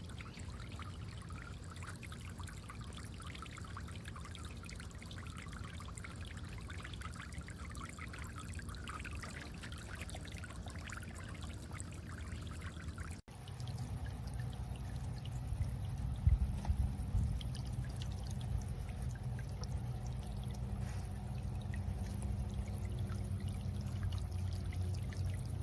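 Steady rushing noise, louder and heavier after a break about halfway through.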